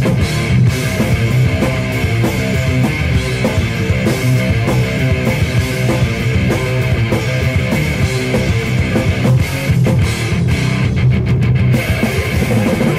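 Loud rock music with guitar and drums, steady and rhythmic, without singing.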